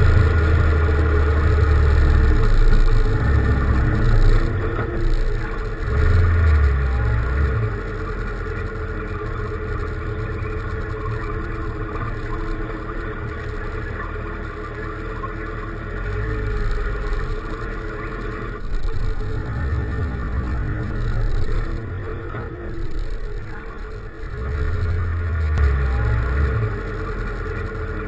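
Motorcycle engine running under a bike-mounted camera: it swells several times as the bike pulls away and accelerates, and settles to a steadier, quieter hum in between, as when idling or rolling slowly in traffic.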